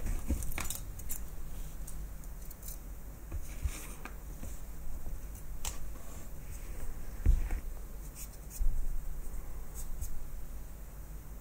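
Small metal clicks, scrapes and taps from handling and taking apart an old aircraft instrument's mechanism, as a small synchro is worked loose from it, with two louder knocks a little after halfway.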